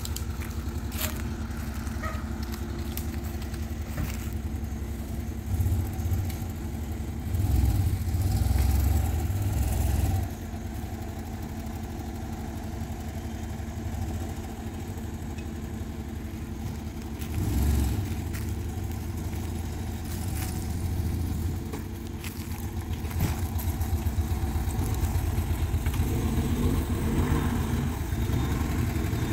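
Volkswagen Kombi van's engine running at low speed as the van is manoeuvred over dirt ground, with several louder surges of revving, the longest about a quarter of the way in, and picking up again near the end.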